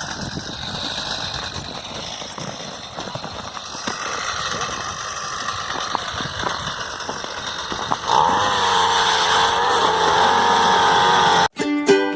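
A small petrol engine running, rough and uneven at first, then louder and steadier with a wavering pitch from about eight seconds in, before it cuts off abruptly; plucked-string music starts right after.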